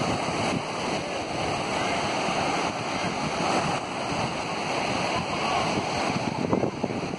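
Mediterranean surf washing steadily onto a sandy beach, with wind buffeting the microphone.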